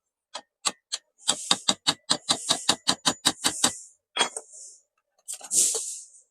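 Hammer striking a screwdriver held as a drift, driving a new bush into a mixer grinder motor's end cover. Three spaced metallic taps come first, then a quick run of about a dozen at roughly four a second, then a couple more taps and a short rattling clatter near the end.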